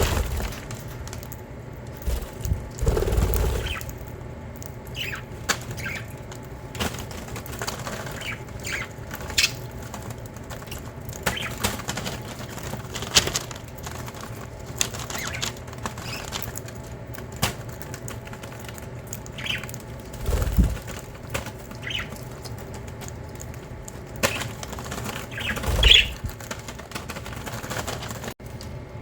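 Budgerigars fluttering their wings and giving short chirps, amid scattered small clicks. A few louder low thumps come a few seconds in, about two-thirds of the way through and near the end.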